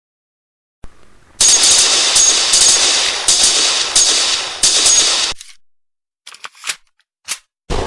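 Sound effects: about four seconds of loud, dense crackling noise with regular sharp strokes, fading out, then a few short separate clicks and a sharp bang with a long fading tail near the end.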